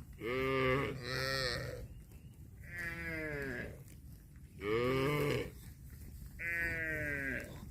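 Cattle mooing: five separate calls of about a second each, several falling in pitch.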